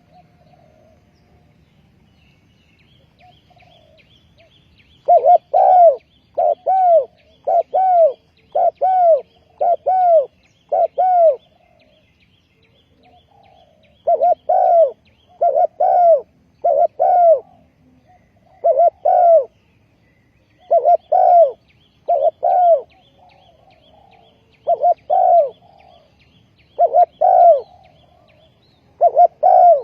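Spotted dove cooing loudly in repeated phrases of several coos, with pauses of a couple of seconds between phrases, starting about five seconds in. Faint chirping of small birds in the background.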